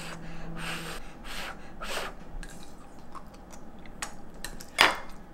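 A young child blowing on hot food in several short puffs during the first two seconds, then chewing. A single sharp click near the end.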